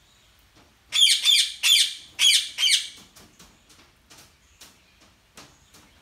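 Ring-necked parakeets screeching: a run of about six harsh, rapid squawks from about one to three seconds in, followed by scattered fainter short calls.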